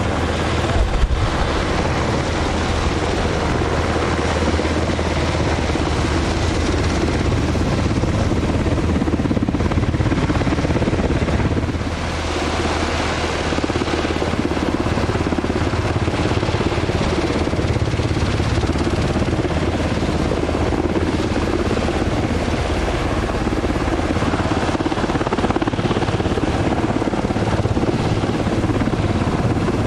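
Sikorsky UH-60 Black Hawk helicopter, its rotor and twin turbine engines running steadily, with a short dip in level about twelve seconds in.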